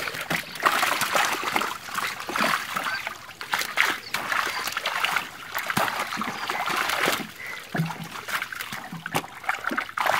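Shallow water splashing and sloshing with many short, irregular slaps as a mass of live fish thrash in a gathered fishing net and are scooped out by hand.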